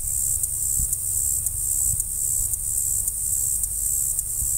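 A steady, high-pitched insect chorus with a faint regular pulse, over an uneven low rumble of wind on the microphone.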